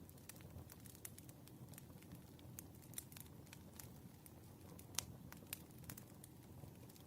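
Wood fire crackling: irregular sharp pops and snaps over a soft low rumble, with one louder pop about five seconds in.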